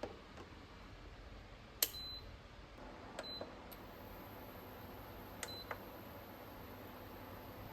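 A few sharp clinks and taps of kitchenware, several of them followed by a brief high ring, like metal or ceramic knocking together. They come spaced over a faint steady hiss, and the loudest is a little under two seconds in.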